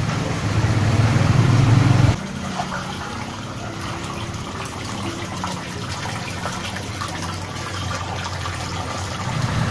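Floodwater sloshing and splashing as someone wades through ankle-deep water inside a flooded house. A louder low rush for the first two seconds cuts off suddenly, leaving quieter water noise with small splashes.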